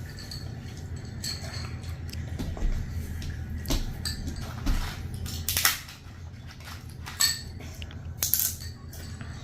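Eating noises: utensils clicking against plates and bowls, with chewing, as a scatter of sharp clicks about a second apart over a steady low hum.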